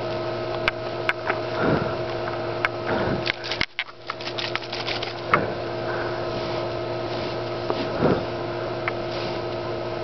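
A steady electrical hum, with scattered sharp clicks and rustling as a squeeze-bottle ink marker is handled and its tip dabbed and rubbed on a surface.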